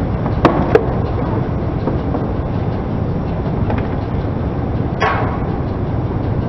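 Car running with a steady low rumble as its tyre rolls slowly over a red printed box and crushes it flat. Two sharp cracks come about half a second in, and a short crackle about five seconds in.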